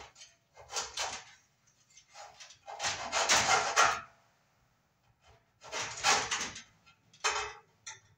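Rasping strokes of a cut through the spiral metal armor of MC cable, in four or five uneven bursts. The longest and loudest comes about three seconds in.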